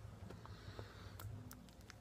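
Quiet room tone: a faint steady low hum with a few soft, brief clicks.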